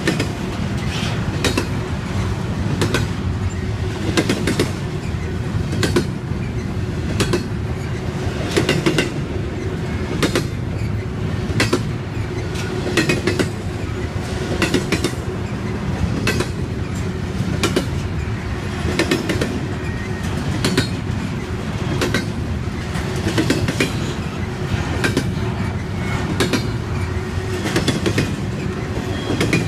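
Double-stack intermodal freight cars of a CSX train rolling past close by, with a steady rumble and a regular clickety-clack of wheels crossing rail joints.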